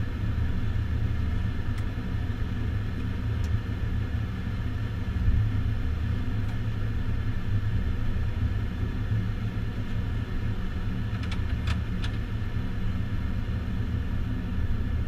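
Steady low rumble of cabin noise inside a taxiing jet airliner's cockpit, from the idling engines and the aircraft rolling along the taxiway, with a few faint clicks about eleven seconds in.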